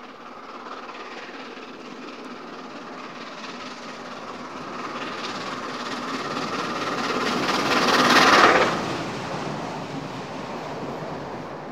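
ŽSR class 556.0 steam locomotive 556.036, a Škoda-built 2-10-0, hauling a passenger train as it approaches and passes close by. The sound builds steadily, is loudest about eight seconds in as the engine goes past, then eases as the coaches roll by.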